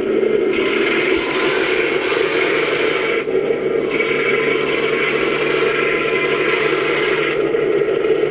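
Simulated Panther tank Maybach engine sound played through a Heng Long RC tank's small speaker by an add-on sound card, blended with the stock RX-18 unit's engine sounds: a loud, steady engine drone. A rougher, hissier layer swells in twice, from about half a second to three seconds in and again from about four to seven seconds.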